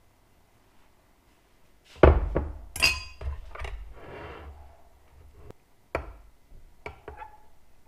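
A loud knock about two seconds in, then a metal knife clinking and scraping against a glass measuring cup as white plastisol is stirred, with another sharp knock about six seconds in.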